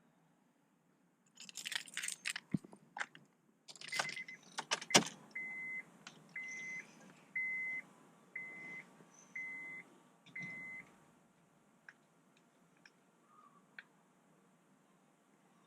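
Car keys jangling, then a few sharp clicks, then a vehicle's warning chime beeping seven times, about once a second.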